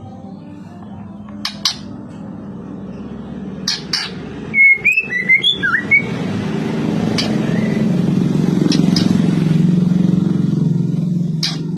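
A low, steady engine hum swells over several seconds and drops away just after the end. A white-rumped shama gives a short run of chirps about five seconds in, with a few sharp clicks scattered through.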